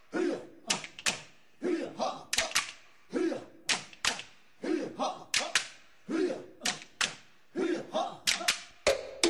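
Percussion music: a low drum stroke followed by a few sharp, wood-block-like clicks, repeating about every one and a half seconds. Near the end a steady held tone joins in.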